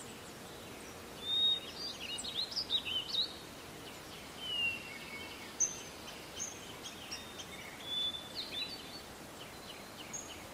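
Songbirds singing: scattered chirps and short whistled phrases over a faint steady hiss.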